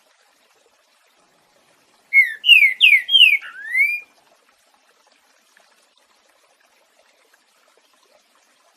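Green-winged saltator (trinca-ferro) singing one phrase of its 'boiadeiro' song: about five loud slurred whistles, mostly falling, the last one rising, starting about two seconds in. A faint running-water sound lies underneath.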